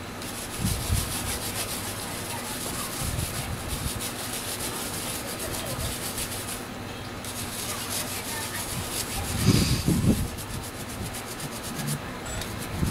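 A small stiff brush scrubbing grime off a removed chainsaw part in quick, rapid strokes, with a short pause about halfway. A louder low bump of handling comes about three-quarters of the way in.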